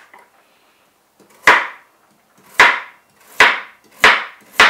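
Kitchen knife chopping carrots on a plastic cutting board: five sharp knocks of the blade striking the board, coming faster toward the end.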